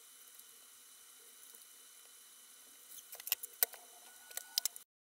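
Faint hiss, then a run of sharp clicks and crackles from medical tape and a gauze dressing being handled and pressed onto the face; the sound cuts off abruptly near the end.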